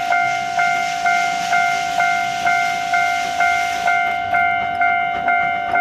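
Steam locomotive whistle blowing one long steady note that pulses about twice a second, with a hiss of steam over the first four seconds.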